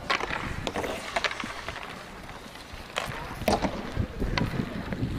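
Ice hockey sticks clacking against the puck and ice, with skate blades scraping, as several sharp knocks spread through; low wind rumble on the microphone.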